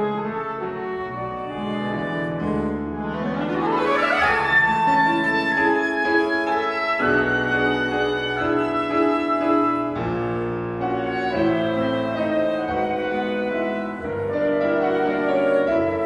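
Flute, clarinet and piano playing chamber music together. About three seconds in, a fast upward run climbs to a held high note.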